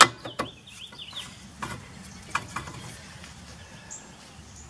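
Light metallic clicks and taps as a new brake rotor is turned on the rear hub by hand to line up its retaining-bolt hole, the sharpest right at the start and a few more over the next three seconds. A bird chirps during the first second.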